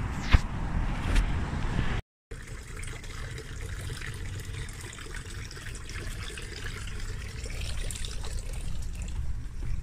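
Water trickling steadily from a small tiled wall fountain into its pebble-lined basin. Before it, low street rumble with a sharp knock and a second, softer one, then the sound cuts out briefly at an edit about 2 s in.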